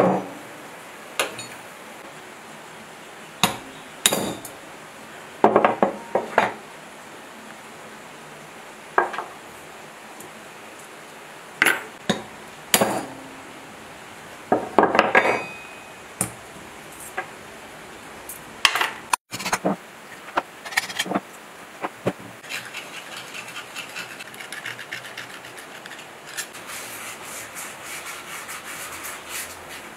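Sharp metal knocks and clinks, single or in short runs, as the valve springs and valves are worked out of a diesel engine's cylinder head. From about two-thirds of the way in, quick steady scrubbing of a hand brush on the head.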